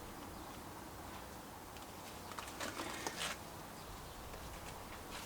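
Flocking applicator squeezed by hand, giving a quick cluster of soft puffs and rustles about halfway through as it dusts fibres onto the model; otherwise faint room noise.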